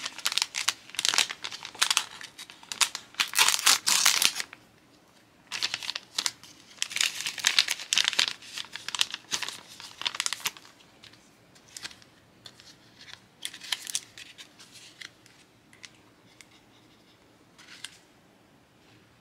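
Plastic blind-bag packaging being handled and torn open, with dense bursts of crinkling and tearing. These thin out to occasional light crinkles in the second half.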